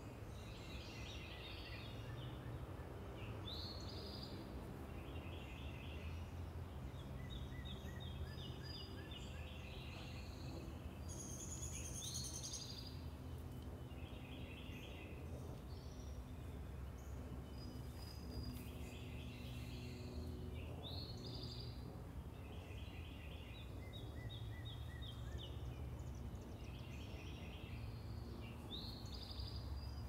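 Several backyard songbirds singing short, repeated phrases of quick notes, a new phrase every second or two, over a steady low rumble of distant traffic.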